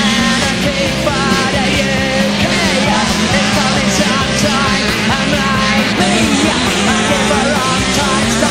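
Loud punk rock music with a sung vocal over distorted guitars and a steady driving beat.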